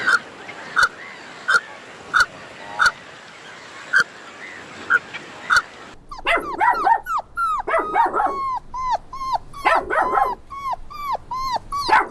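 Dog giving short, sharp yips, about eight of them spaced apart over the first half. About halfway in, this gives way to a quick, overlapping run of falling whimpers and yelps.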